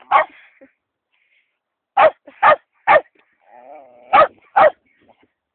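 West Highland white terrier barking: six sharp barks, one and then after a pause a quick run of three and a pair, with a faint whine just before the last two.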